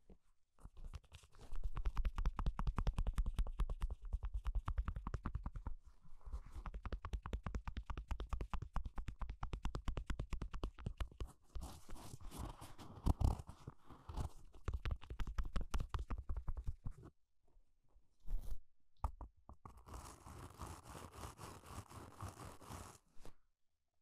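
Toilet brush bristles scratched rapidly against the blanket right next to the microphone, a dense run of scratching strokes. The scratching stops briefly about two thirds of the way in, comes back in a short burst, then runs again until just before the end.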